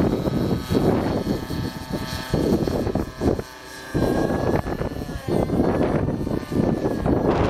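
Smoke-trailing nitro RC helicopter's engine and rotor whining steadily as it lifts off and climbs, the pitch wavering in the second half. Heavy wind buffeting on the microphone comes and goes in gusts, easing for a moment about three and a half seconds in.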